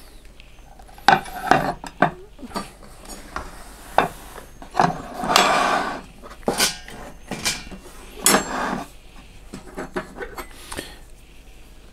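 Metal serving tongs clinking against a stainless steel pot and ceramic plates, with dishes and the pot set down on a wooden table, and a longer scrape about five seconds in.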